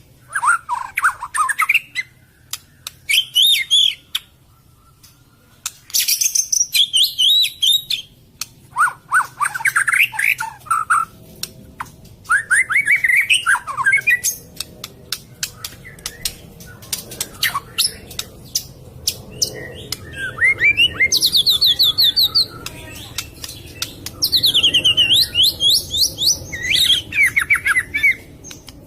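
White-rumped shama singing a varied song of loud whistled phrases, fast trills and harsh chattering or clicking notes, with short pauses between phrases.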